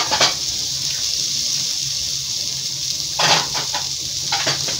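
French beans, carrots and onion frying in a little oil in a pan, a steady sizzle, with a few brief clatters near the start and again about three seconds in.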